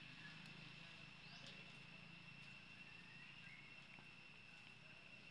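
Faint forest ambience. A steady high insect drone runs throughout, with a few faint chirps and a short rising call about a second and a half in.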